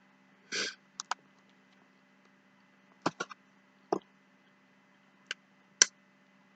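Sporadic eating sounds: a handful of short, sharp clicks and taps, some in quick pairs, the loudest near the end, over a faint steady electrical hum.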